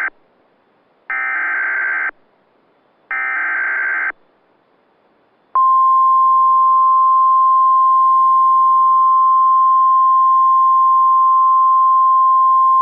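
Emergency Alert System SAME header: the end of one burst of buzzing digital data right at the start, then two more one-second bursts a second apart. About five and a half seconds in, a steady single-pitch warning alarm tone (the weather-radio 1050 Hz tone) starts abruptly and holds.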